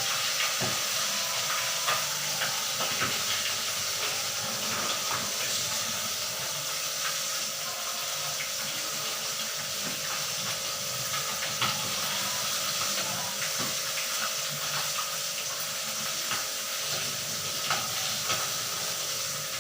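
Tilapia frying in hot oil in a pan: a steady sizzle with scattered pops and crackles.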